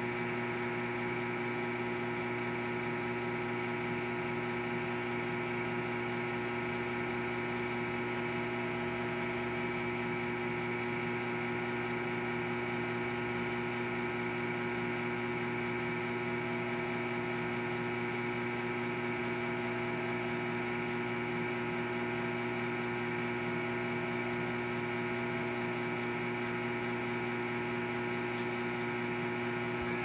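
Steady electrical hum with several constant tones from an R1234yf A/C service machine as its refrigerant gas analyser starts up.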